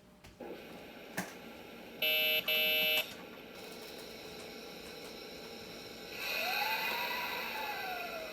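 A model-train sound box playing recorded E259 series EMU sounds through its small speaker: a click, two short buzzer beeps, then a whine that rises and slowly falls as the train's electric motors start to pull away.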